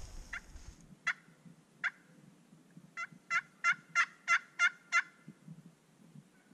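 Hen turkey yelps made on a hand-held turkey call blown at the mouth. Three single yelps come spaced apart, then a run of seven quick yelps, about three a second, each note breaking sharply downward in pitch.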